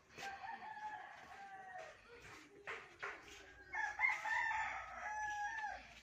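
A rooster crowing twice: two long, drawn-out crows, each held and then dropping in pitch at the end, the second one louder.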